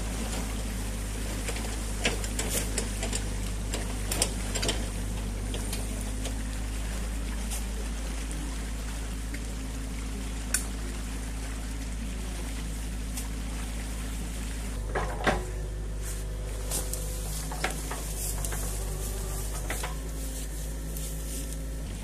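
Muddy stream water rushing through a breached beaver dam over the steady hum of a running excavator engine, with scattered knocks and splashes from a long-handled rake working debris in the water, bunched in the first few seconds and again about two-thirds of the way in.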